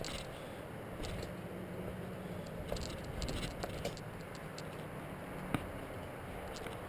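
Handling noise of a carried camera on the move through the forest: scattered small clicks, taps and rubs, likely footsteps and the camera knocking in its mount, over a steady low rumble, with one sharp click about five and a half seconds in.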